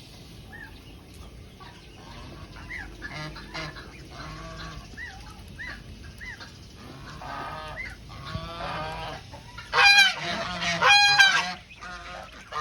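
Geese honking: scattered short, softer calls, then two loud bursts of honks about ten and eleven seconds in.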